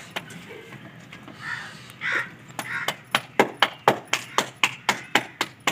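Bare palms slapping a ball of roti dough back and forth to flatten it by hand. The slaps start about two and a half seconds in and go at an even pace of about four a second.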